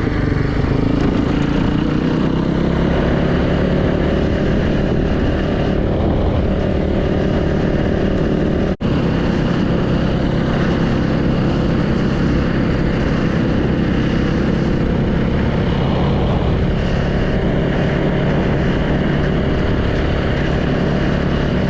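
Yamaha YZ450 dirt bike's single-cylinder four-stroke engine running steadily while ridden at low speed, with a momentary gap in the sound about nine seconds in.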